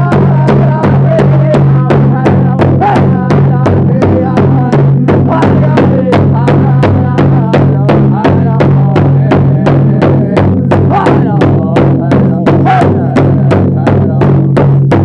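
Powwow drum group: several drummers striking a big drum in unison in a steady, fast beat, with voices singing over it.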